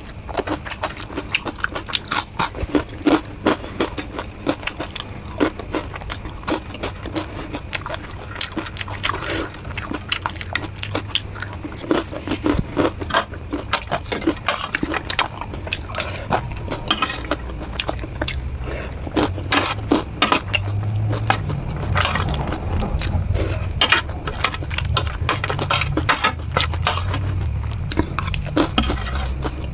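Close-miked chewing and crunching of Kurkure corn puffs and chow mein noodles, with a steel spoon clinking and scraping on the plate as the food is gathered up.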